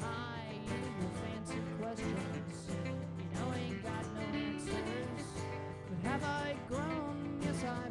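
Live band playing a song, led by strummed acoustic guitars, with a melody line that glides up and down in pitch above them.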